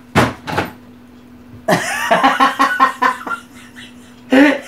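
A woman's loud outburst of laughter, a shrill cry breaking into rapid pulses of laughing, with a short sharp sound at the very start and one more laughing burst near the end.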